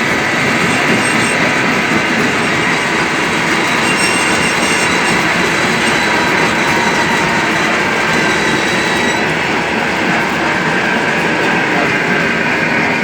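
Stone crusher plant running: a loud, steady din of the crushing machinery working through rock, with a faint high whine for a few seconds in the middle.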